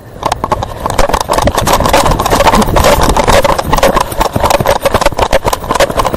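Body-worn camera jostled hard against clothing while its wearer moves fast: a loud, dense crackle of rubbing and knocks on the microphone, with thuds underneath, building up about a second in.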